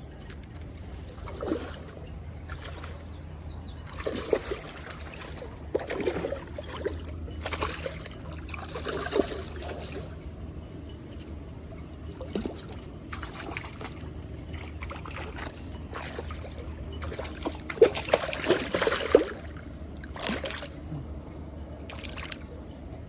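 Shallow water splashing and trickling in irregular bursts over a steady low rumble, with the busiest, loudest splashing about eighteen seconds in.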